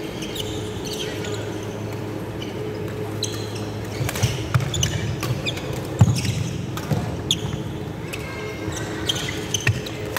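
Badminton rally on a wooden sports-hall court: sharp cracks of rackets hitting the shuttlecock and short squeaks of court shoes on the floor, thickening about four seconds in, over a steady background hum.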